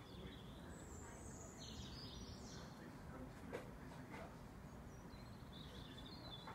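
Faint low background rumble with a few high bird chirps, a run of them about a second in and more near the end.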